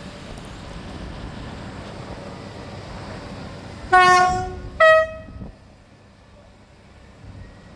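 Approaching diesel multiple-unit train sounding its two-tone horn about four seconds in: a longer low note, then a shorter high note, over a steady low rumble.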